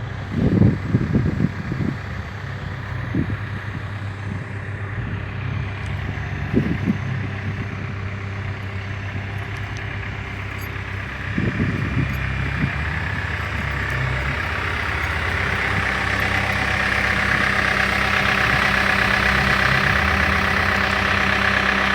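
Case 580N backhoe's diesel engine running while the machine digs, with a few short thumps near the start, about a third of the way in and about halfway. A high whine grows louder through the second half as the engine works harder.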